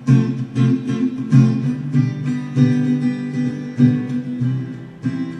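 Instrumental accompaniment of a children's song: acoustic guitar strummed in a steady rhythm, playing between sung lines.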